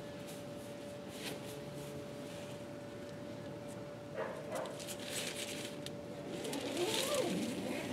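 Faint rustling of the tent's nylon fabric as it is handled to adjust the tension, over a faint steady tone. Near the end a louder wavering whine rises and falls in pitch.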